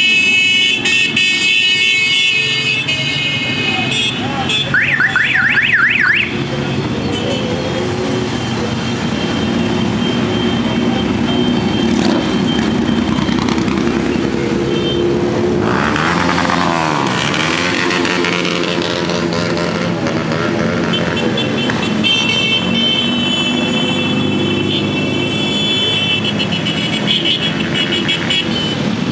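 A procession of many motorcycles riding past, their engines running together in a dense rumble. Horns sound over them in held, steady tones at the start and again from about two-thirds of the way through, with a warbling electronic siren-like tone about five seconds in.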